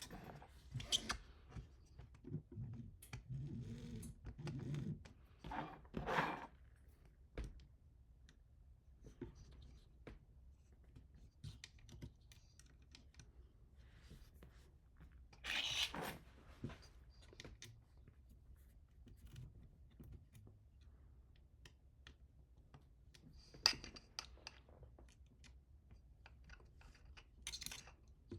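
Scattered light clicks and short rustling, scraping bursts of hand assembly work: parts, screws and small tools being handled and fitted. Several louder handling bursts stand out over a faint low hum.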